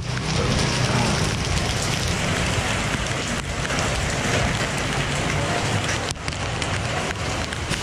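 Heavy rain pouring onto a flooded street and pavement, a steady hiss of water with no break.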